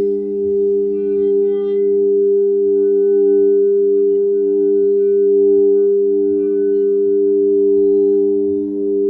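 Singing bowls ringing in a sustained drone of steady low tones that overlap, one of them pulsing with a slow wobble.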